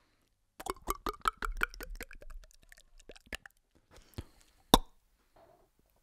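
Beatboxed mouth imitation of thick smoothie glugging into a glass as it is poured: a quick run of wet pops that slows and fades over about three seconds. Two clicks follow, the second one sharp and loud.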